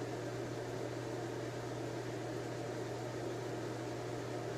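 Steady low hum with an even hiss underneath, unchanging throughout: constant background room noise such as a fan or appliance running.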